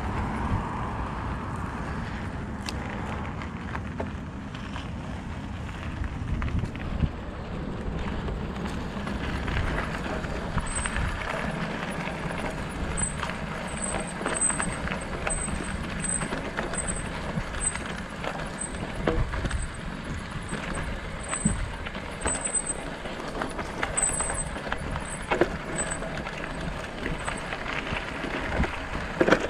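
Bicycle ridden over a dirt trail: tyres crunching on the packed dirt and gravel and the bike rattling over bumps, with wind rumbling on the microphone.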